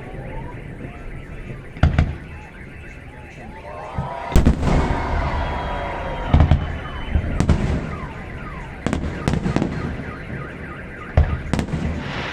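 Fireworks salvos bursting: about eight sharp booms, the heaviest about four seconds in, followed by crackling. Wailing, gliding tones sound between the bangs.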